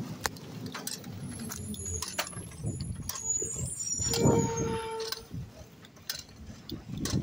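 Garbage truck engine running down the street, mixed with knocks and clicks from the camera being carried at a walk. About four seconds in, a short steady tone sounds for about a second, the loudest moment.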